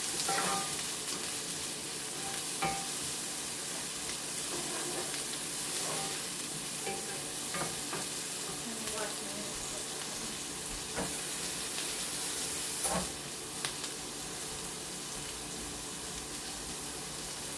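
Diced vegetables sizzling steadily in a metal skillet over a gas burner, stirred with a wooden spatula that now and then knocks and scrapes against the pan.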